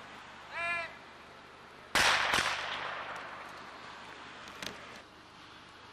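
A starting pistol fires about two seconds in, a sharp loud crack followed by a second crack less than half a second later, then a fading tail, as a sprinter starts from the blocks. About a second before the shot comes one short, high call.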